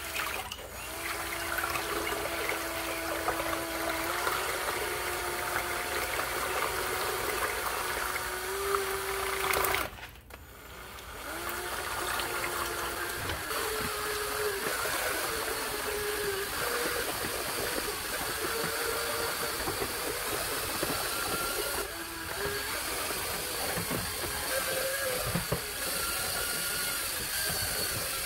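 Power drill spinning a paint-mixer paddle in a bucket of water, churning the liquid while soluble humic acid powder is mixed in; the motor whine shifts in pitch as the trigger is eased and squeezed. The drill stops about ten seconds in and starts again a second or so later.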